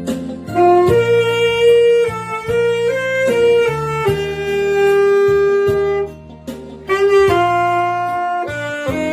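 Saxophone playing a slow melody in long held notes over a sustained backing accompaniment, with a short break for breath about six seconds in.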